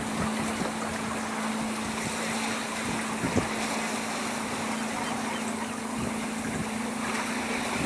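A boat engine's steady hum over wind and water noise, with a single low thump a little over three seconds in.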